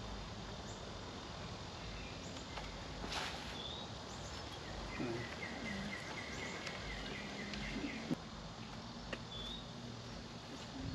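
Outdoor park ambience with birds chirping and insects, including a rapid trill a little past the middle. A brief whoosh comes about three seconds in and a sharp click about eight seconds in.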